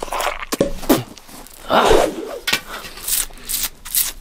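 A wooden pole used as a toothpick, rubbed and scraped against the teeth: a run of short, irregular scraping and rubbing noises, the loudest a rough scrape about two seconds in.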